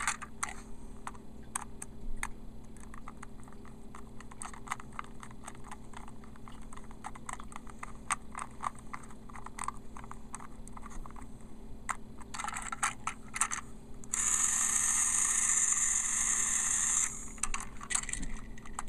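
Small screwdriver and plastic parts of a Trackmaster Diesel 10 toy engine clicking and scraping as its body is screwed back together. About three-quarters of the way through, a steady hiss lasts about three seconds.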